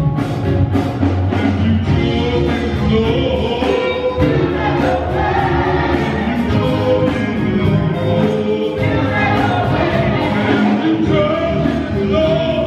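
Live gospel choir singing, a male lead voice out in front of the massed choir, with members clapping along.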